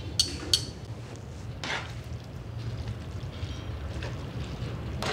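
Metal kitchen tongs clicking twice, then working saucy spaghetti in a frying pan with a few wet scrapes, over a low steady hum.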